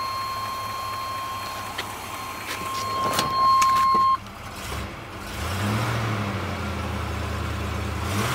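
A dashboard warning buzzer sounds a steady high tone, with a few clicks, and cuts off suddenly about four seconds in. The 1981 Chevrolet Camaro Z28's V8 then starts with a brief rise in revs and settles into a steady idle.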